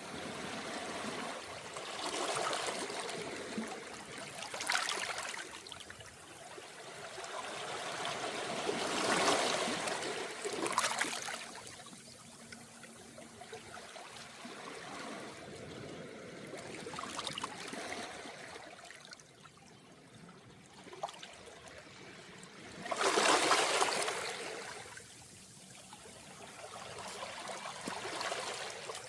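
Calm small waves washing onto a round-pebble beach, each surge followed by a trickling wash. The waves come in swells a few seconds apart, and the biggest arrives a little after twenty seconds in.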